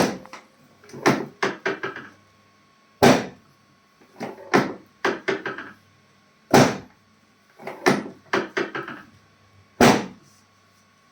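Knocks and thumps from chiropractic adjusting: a loud knock about every three seconds, each followed by a quick run of lighter knocks.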